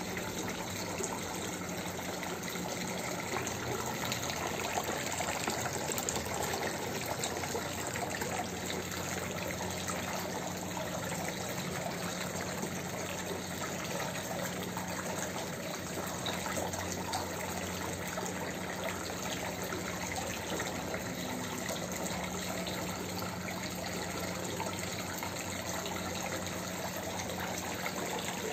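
Decorative elephant-head indoor water fountain running, its water spilling from a shell-shaped bowl and splashing steadily into the basin below, over a steady low hum.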